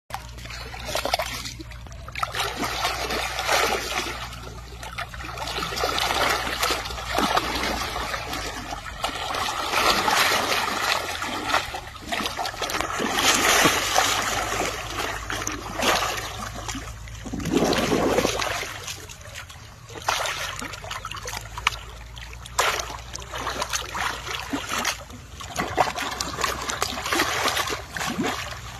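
Water splashing and sloshing as a baby elephant rolls and plays in a shallow muddy pool, rising and falling in waves, with a low steady hum underneath that stops about two-thirds of the way through.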